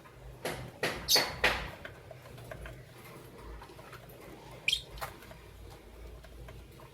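Lovebirds chirping: a quick run of short, sharp chirps about a second in, then a single sharp chirp near the five-second mark.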